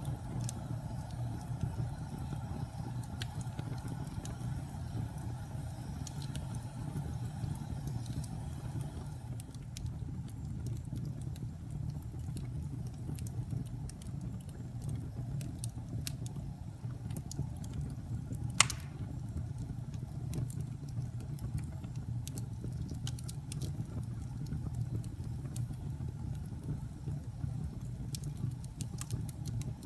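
Wood fire burning, with a low steady rumble under scattered small crackles and one sharper, louder pop about two-thirds of the way in.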